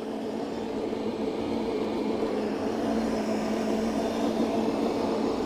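Electric stand mixer's motor running steadily with a constant hum as its dough hook kneads dough in the bowl.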